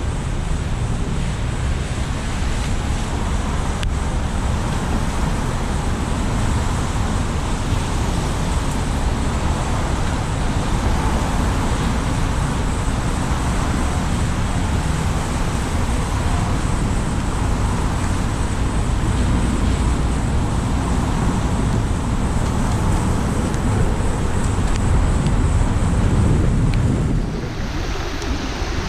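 Car driving on a rain-wet city street: steady road and tyre noise with a low rumble, and some wind on the microphone. The noise dips briefly near the end.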